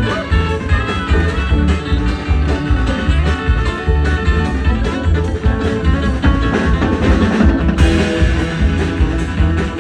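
Live string band playing an instrumental break with no singing: plucked guitar lead over a steady bass beat, in a country/bluegrass style.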